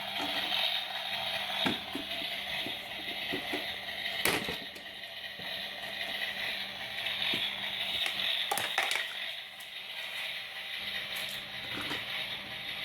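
Small plastic toy pieces being handled, with scattered clicks and knocks over a steady hiss.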